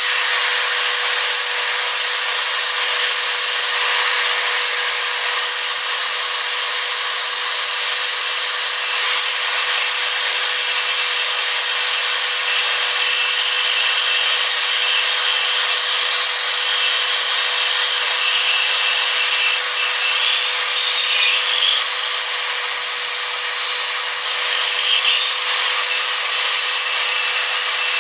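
Electric drill running steadily with a diamond grinding stone, a rotary-tool bit, pressed into a glass bottle to widen a hole. A steady motor whine sits under a high, hissing grind of the stone on the glass.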